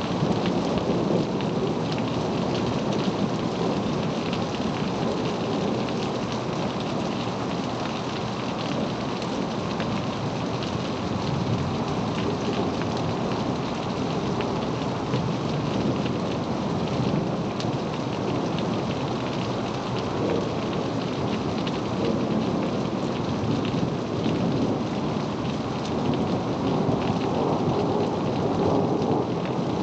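Steady rain pouring during a thunderstorm: a dense, even patter of drops on surfaces, with no clear thunderclap.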